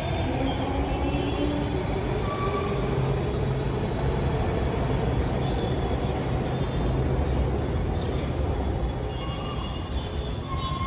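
Delhi Metro train pulling out of an elevated station: a steady rumble of wheels and running gear, with a faint high whine.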